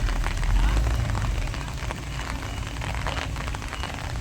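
Heavy diesel machinery running with a steady low rumble, with dense crackling over it and short high beeps repeating from about halfway through.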